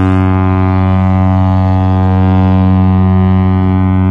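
A loud, steady low drone: one unchanging pitch with a dense stack of overtones, held without a break.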